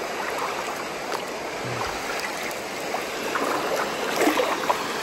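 Shallow creek water running steadily over rocks, with light splashing about three to four seconds in as a cast net is pulled back through the water.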